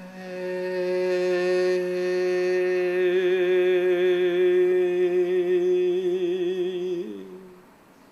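A voice chanting the Taoist triple-burner healing sound "hey" as one long held note. It lasts about seven seconds, wavers slightly in its later part, then fades out.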